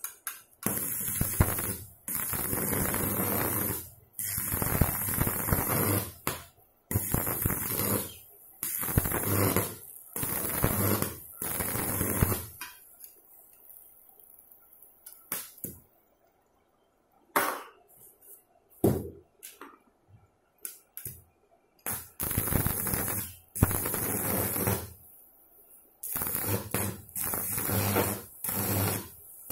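ZiziWeld ARC 2500 mini inverter stick welder's arc crackling and sizzling in repeated bursts of one to two seconds with short breaks, as the electrode is struck and re-struck on angle iron at about 119 amps. About halfway through there is a longer lull with only a few short strikes before the steady bursts resume.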